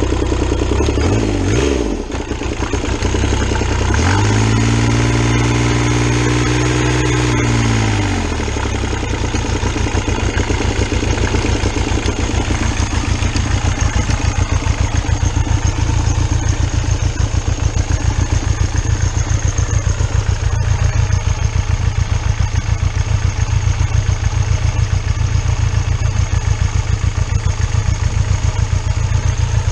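Diesel motorcycle's 1.2-litre three-cylinder VW Lupo 3L turbo-diesel engine running just after starting: about four seconds in it is revved up, held for a few seconds and let drop, then it settles into a steady, evenly pulsing diesel idle.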